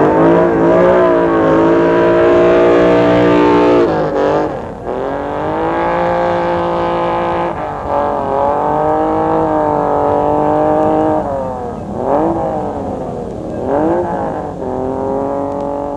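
Racing engine running hard at high revs, holding a steady pitch for a few seconds at a time and dropping in pitch at gear changes about four and seven and a half seconds in, then quick dips and climbs in revs near the end.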